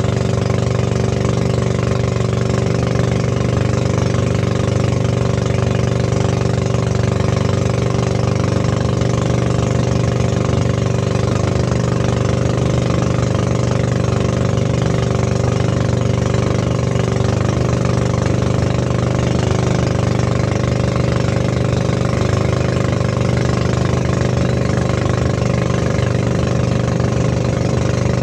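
Motorized outrigger boat's engine running steadily under way, at an even, unchanging pitch.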